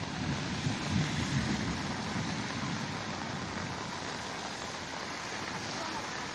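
Steady rushing of rain and floodwater, with low rumbling in the first two seconds.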